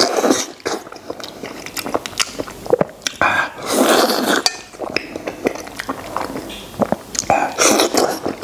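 Close-miked eating of braised pig-head meat: wet chewing and lip smacks, with loud sucking slurps about a second long right at the start, around three and a half seconds in, and near the end.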